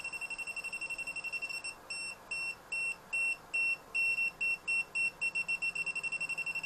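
UNI-T UT12M-EU non-contact voltage detector beeping with a high electronic tone, set to raised sensitivity and signalling live voltage near a cable. The beeps come fast at first, about ten a second, slow to longer separate beeps about three a second through the middle, then speed up again near the end, as the detector moves farther from and closer to the live wire.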